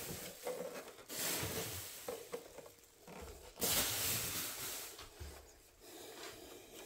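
Plastic bubble wrap rustling and crinkling, in two longer spells about a second in and again around the middle, as a boombox is lifted out of it and handled, with a few light knocks in between.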